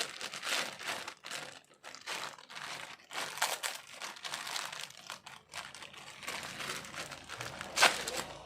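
Packaging crinkling and rustling in irregular bursts as a parcel is unwrapped by hand, with one sharp click near the end.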